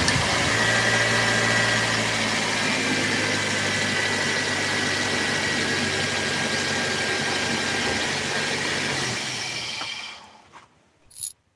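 Toyota Corolla four-cylinder engine idling steadily just after being started, with a faint steady high whine over it. The sound fades out about nine to ten seconds in.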